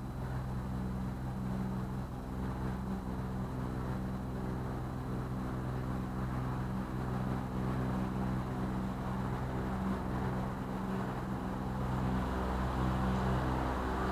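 Small canal cruiser's engine running steadily at cruising speed, with a constant low hum. It gets slightly louder near the end.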